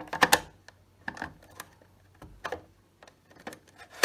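Plastic clicks and scrapes of an Apollo Series 65 optical smoke detector head being twisted onto its mounting base: a handful of sharp separate clicks, the loudest right at the start, the rest spread about a second apart.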